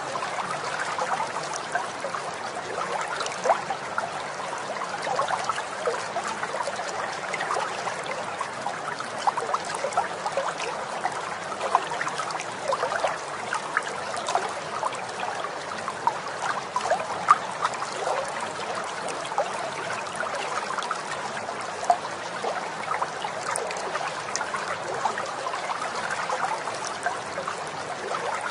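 Steady trickling, bubbling water like a small stream, full of small quick splashes.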